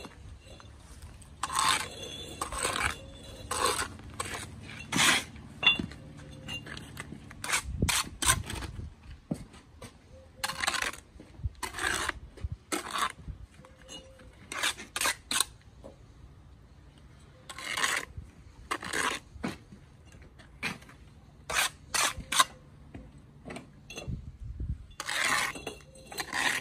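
Steel bricklaying trowel scraping mortar along a course of blue engineering bricks, in a run of short, irregular scrapes and taps of the blade on the brick.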